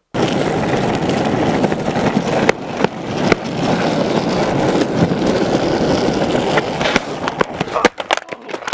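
Skateboard wheels rolling on asphalt, a steady rumble with a few sharp clicks. Near the end comes a quick run of knocks and clatter as the rider falls and the board hits the road.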